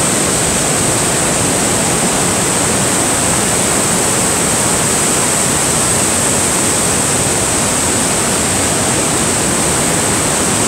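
Loud, steady roar of Niagara's Horseshoe Falls heard close up, mixed with the hiss of its spray falling like rain.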